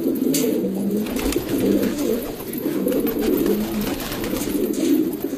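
A flock of domestic pigeons cooing together, many low coos overlapping into a steady churr, with a couple of brief flutters of wings.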